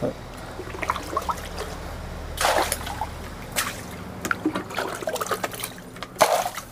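Water splashing and sloshing in a small bucket dipped into a concrete tank, as tank water is mixed into duck-pen litter to make a daphnia feed slurry. Near the end the bucket is tipped and the mix pours back into the tank with a louder splash.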